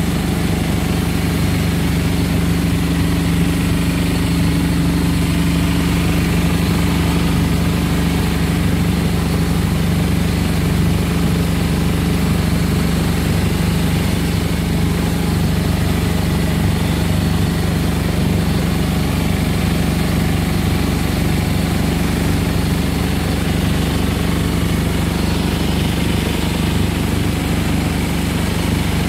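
A small boat's engine running steadily while under way, its pitch holding level throughout.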